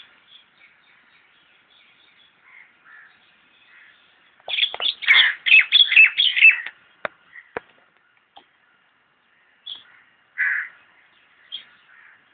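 House crows cawing: a burst of many overlapping caws from about four to seven seconds in, then a single caw about ten seconds in, with fainter calls between.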